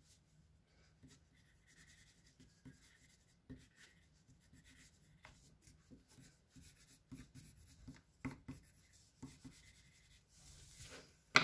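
Pencil scratching across paper on a hardboard clipboard in short, quick sketching strokes with small taps, faint throughout. A single sharp knock right at the end is much louder than the strokes.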